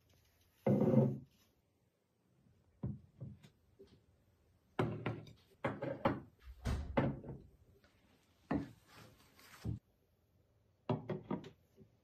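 Dishes, bowls and a vase being set down on a table one after another: a series of separate knocks and thunks, the loudest about a second in and a quick cluster near the end.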